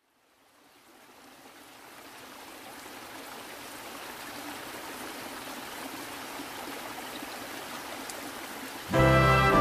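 Water of a rocky mountain stream running steadily, fading in over the first couple of seconds. Loud music cuts in near the end.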